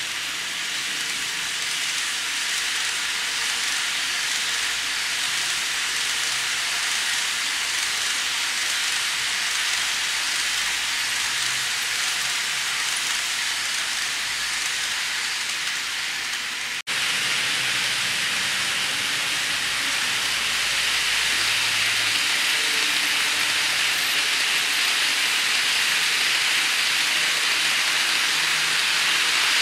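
N scale Shinkansen model train running on its track: a steady rolling hiss of small wheels and motor. It breaks off for an instant a little over halfway through and comes back slightly louder and brighter.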